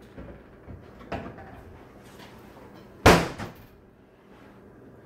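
A few light knocks, then a wooden pantry door shut firmly about three seconds in: one sharp thud with a short ring after it.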